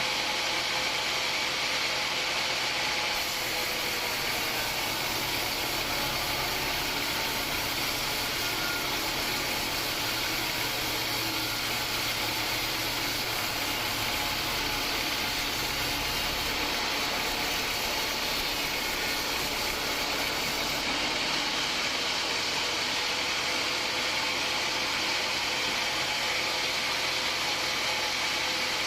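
Homemade band sawmill running steadily: a continuous mechanical hum and hiss with a few steady tones, as the saw works through hard acacia wood. A deeper rumble comes in about three seconds in and fades out after about twenty seconds.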